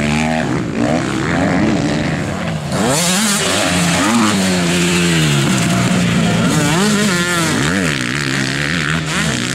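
Motocross bike engines racing over the track, revving up and down again and again as the riders open and close the throttle and shift, with a rise in pitch every second or so.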